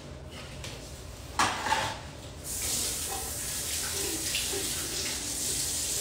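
A bathroom sink tap is turned on about two and a half seconds in and water runs steadily into the basin. It follows a short knock a second or so earlier.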